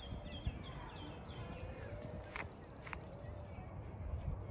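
Small songbirds singing over a low steady background rumble: a quick run of high, falling chirps, then a fast, even trill at about two seconds in.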